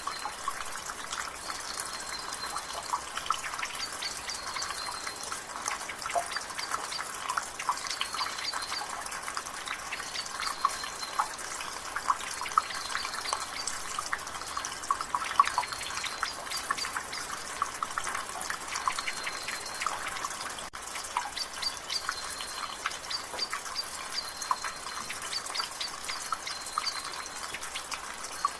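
Rainwater dripping from a gutter in quick, irregular drops over a steady patter of drizzle. A bird repeats a short, high call every couple of seconds.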